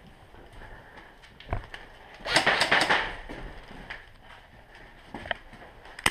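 Airsoft pistol fire and BB impacts: a single sharp crack about one and a half seconds in, a quick cluster of cracks and knocks a little after two seconds, and single clicks near the end.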